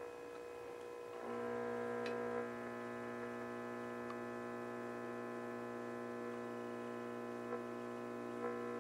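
Philco 60 tube radio's speaker putting out a steady hum of several tones with no station coming in, as its tuning capacitor is turned. About a second in the hum gets louder and fuller, the set responding to the tuning.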